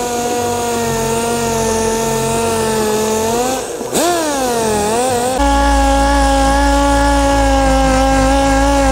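Air-powered orbital sander whining at a steady pitch as it sands old paint off a car body. About three and a half seconds in its speed sags and wavers. About five seconds in the sound switches abruptly to a slightly higher steady whine with a low rumble underneath.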